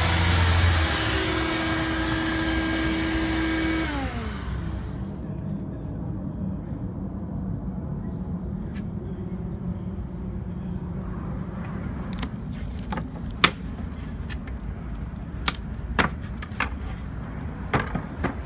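Wood router with a dust-extraction vacuum running at full speed, then spinning down with a falling pitch about four seconds in. After that a low steady rumble remains, with several sharp knocks of MDF pieces being handled and set down.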